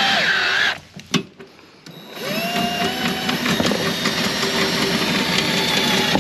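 Electric motor raising a travel trailer's rear stabilizer jacks, running with a whine. It stops just under a second in, a single click sounds in the pause, then it starts again about two seconds in, its pitch rising as it spins up, and runs on.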